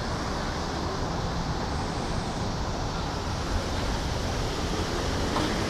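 Steady rumble of road traffic mixed with wind on the microphone, with a single small click about three and a half seconds in.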